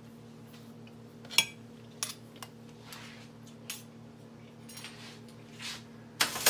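Steel knife and fork clinking and scraping against a ceramic plate and the countertop as they are picked up and set down: a string of sharp clinks, the loudest about a second and a half in and right at the end, over a faint steady hum.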